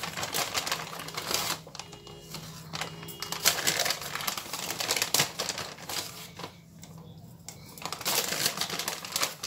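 Flour being scooped by the cupful and poured into a stainless steel mixing bowl: rapid rustling and tapping in three spells, with two short pauses between them.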